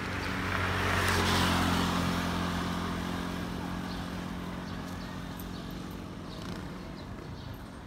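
Road traffic on a highway: a vehicle passes, loudest about a second and a half in and then fading away, over a steady low hum.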